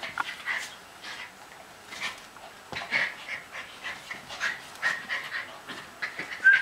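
Schipperke dogs play-wrestling, giving short high-pitched whines and squeaks in quick, irregular succession, with brief scuffling sounds between them.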